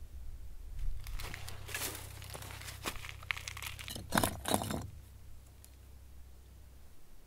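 Loose stones being handled and shifted by hand on rocky, gravelly ground, grating and crunching, with two louder scrapes about four seconds in.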